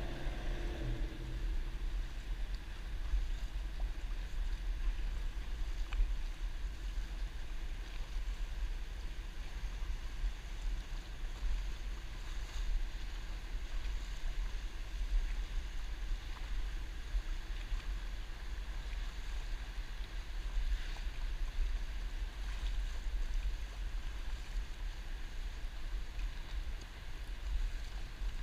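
Wind rumbling on the microphone of a camera riding low on a stand-up paddleboard, over water lapping and splashing around the board. A boat engine's note fades out right at the start.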